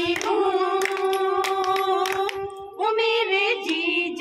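A woman singing a Hindi film song unaccompanied, holding two long, steady notes with a short break between them about two and a half seconds in. A few short, sharp knocks sound over the singing.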